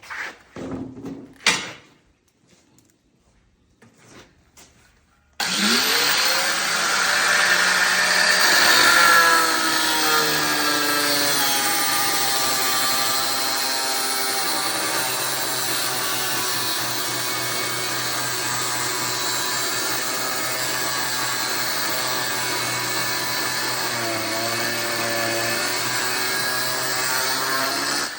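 A few clicks and knocks, then about five seconds in an electric power tool starts, its motor rising in pitch as it spins up, and runs steadily with a cutting hiss while it cuts the heads off steel bolts.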